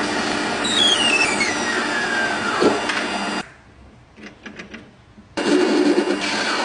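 Dense machine noise from workshop work, with a whine that falls steadily in pitch. It cuts off abruptly, leaving about two seconds of quiet with a few small clicks, then starts again just as suddenly.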